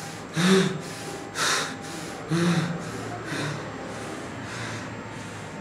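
A man's slow, breathy, acted menacing laugh: four drawn-out bursts about a second apart, fading away.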